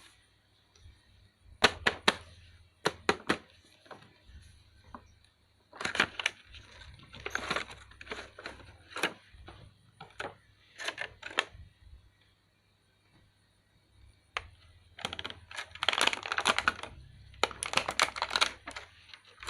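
Irregular clicks, taps and rustling from plastic toys and their packaging being handled, with two busier stretches of clattering.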